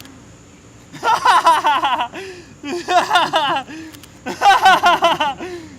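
Hearty laughter in three loud bouts, each a rapid run of repeated "ha" pulses.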